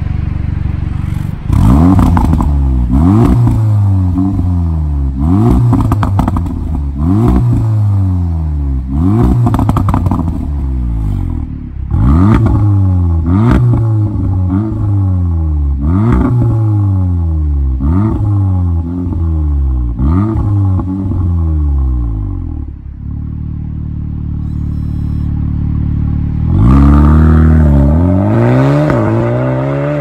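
Audi S3 8V's turbocharged 2.0-litre four-cylinder through an ARMYTRIX valvetronic exhaust, free-revved in repeated blips about once every second and a half. Each rev climbs and falls back with pops and crackles. It settles to a steady idle for a few seconds, then revs hard again near the end as the car pulls away.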